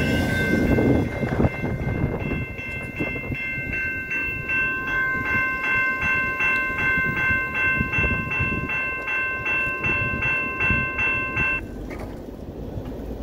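The end of a double-stack freight train rumbles past in the first second. Then the crossing's GS Type 2 electronic bell rings steadily, about two strokes a second, as the gates go up, and it stops near the end.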